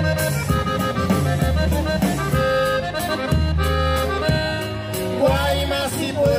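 Live norteño band playing through a PA: button accordion carrying the melody in an instrumental passage, over guitar, bass and drums.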